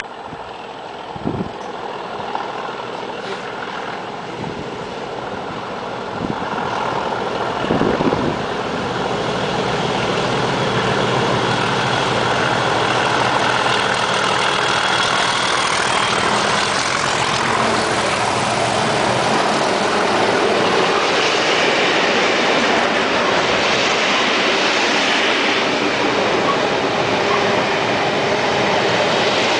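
Two English Electric Class 37 diesel locomotives working hard under load, their engine sound growing louder over the first several seconds as they approach and pass, with a couple of low thumps early on. Near the end the heavy wheel noise of loaded scrap wagons rolling past takes over.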